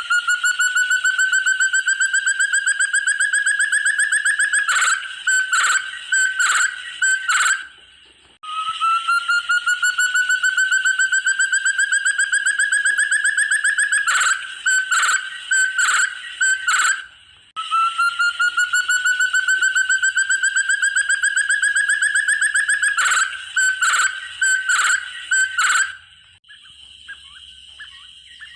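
Call of the forest partridge known as burung terung or puyuh hutan, given three times over. Each phrase is a rapid run of notes climbing slowly in pitch for about five seconds, ending in four or five loud separate notes.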